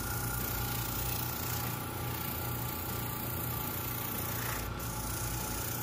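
Grex airbrush hissing steadily as it sprays paint, over the low steady hum of its small airbrush compressor.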